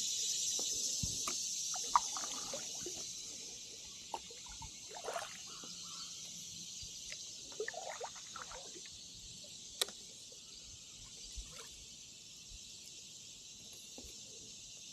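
A paddle dipping and pulling through creek water from a paddle board, with splashes and drips and a couple of sharp knocks. A steady high insect chorus runs underneath.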